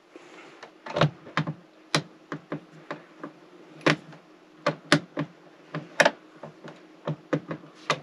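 Screwdriver turning the Phillips screws out of an RV air conditioner's plastic ceiling assembly: a string of short, irregular clicks and ticks.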